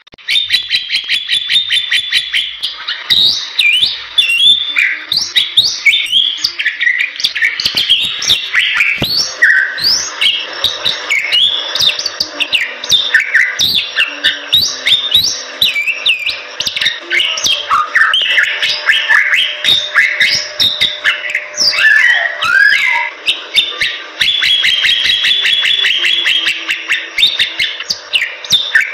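Bali myna singing energetically: a fast trill of rapidly repeated notes, then a dense run of loud, varied chirps, whistles and squawks. The fast trill returns near the end.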